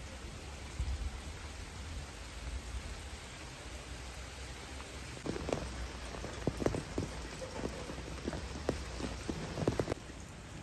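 Steady rain falling on foliage and wet ground. From about halfway through, a run of louder, sharper drop strikes lands close by.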